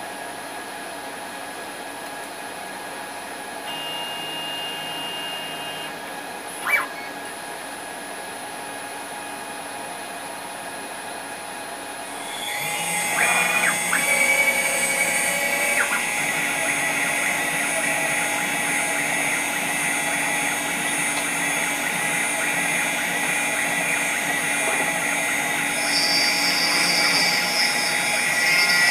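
6040 CNC router spindle running at about 10,000 RPM with a steady high whine and an air blast hissing; about twelve seconds in the sound grows louder and shriller as the single-flute end mill starts cutting aluminium dry. A sharp click comes about seven seconds in.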